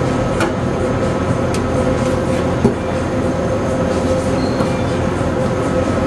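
Steady, loud mechanical drone with a faint held hum, and a few sharp metallic clinks from hands working on the exhaust pipework under the car.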